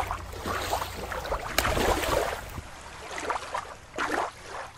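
Water lapping and sloshing in uneven surges, with a sharp click about one and a half seconds in.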